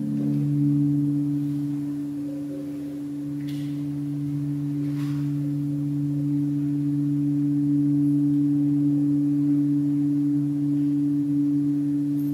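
Sustained low musical drone of two steady, held tones, swelling in at the start and ringing on without a break.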